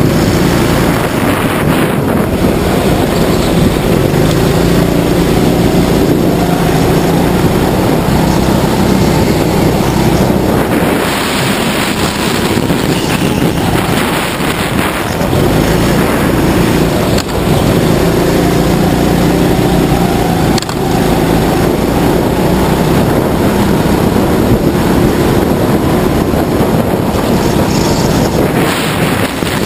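A racing go-kart's motor running hard, its pitch rising and falling as the kart speeds up on the straights and eases off for the corners, with wind buffeting the onboard microphone.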